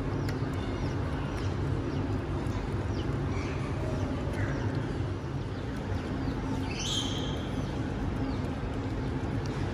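Steady low hum with a run of short, high animal chirps throughout and one louder, squeaky high call about seven seconds in.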